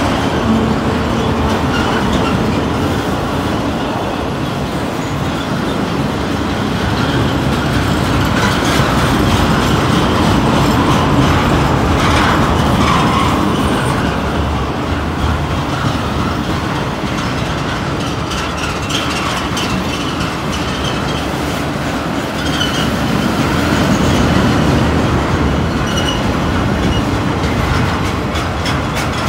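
Freight train of loaded flatcars rolling steadily past: a continuous rumble of steel wheels on rail with clickety-clack over the joints, and a few brief faint squeals from the wheels.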